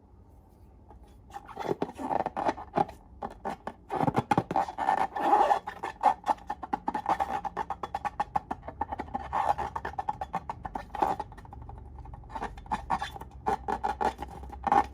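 Slime being squeezed and poked by hand: a dense run of sticky clicks and small air-pocket pops that starts about a second in and goes on, uneven and rapid.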